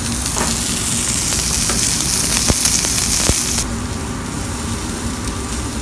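New York strip steak sizzling loudly as it sears in hot oil in a skillet, with a couple of sharp clicks partway through. The sizzle drops off abruptly about three and a half seconds in.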